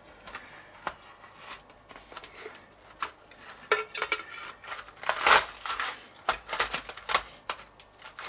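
Flat metal spatula scraping and scoring a sheet of frozen ice cream base in a stainless steel pan set over crushed ice: a run of scrapes and clicks of metal on metal, loudest a little past the middle.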